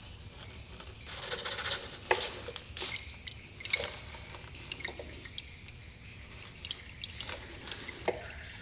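Faint crinkling of a plastic bag and small plastic clicks and ticks as a gloved hand works the oil filter housing cap loose on a BMW E46 330i engine, with a few sharper ticks, one near the end.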